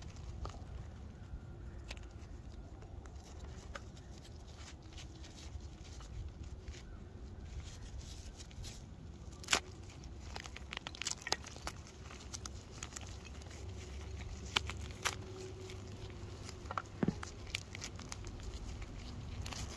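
Blocks of gym chalk crushed and crumbled between fingers: a dry, powdery crunching broken by scattered sharp cracks as chunks snap, the loudest about halfway through.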